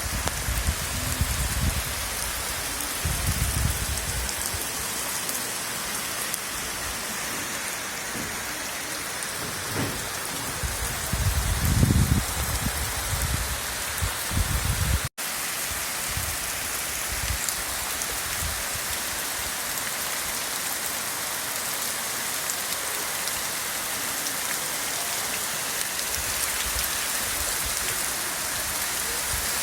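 Steady rain falling, an even hiss. In the first half, low rumbles come and go under it. After a brief break about halfway through, the rain carries on steadily.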